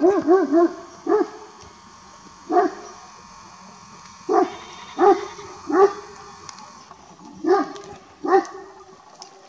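Livestock guardian dog barking: a quick run of about five deep barks at the start, then single barks spaced a second or more apart. It is the alarm barking of a flock dog at something it has heard or seen.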